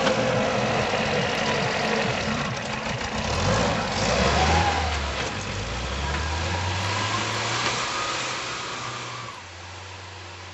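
Pinzgauer off-road truck's engine revving as it ploughs through deep snow on chained wheels, its note rising and falling with a whine that sweeps up and down in pitch. It grows fainter as the truck pulls away near the end.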